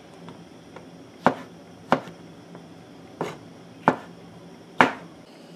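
Knife slicing black olives on a cutting board: about five sharp knocks of the blade striking the board, unevenly spaced.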